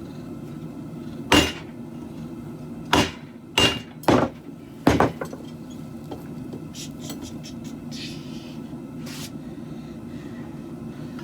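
Hand hammer striking steel on an anvil while forging a khopesh blade: five heavy blows in the first five seconds, then a few lighter taps and one more blow, over a steady low background hum.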